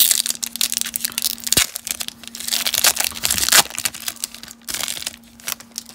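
Trading-card pack wrapper crinkling and tearing as it is ripped open by hand, in two main bursts of crackling with smaller rustles between.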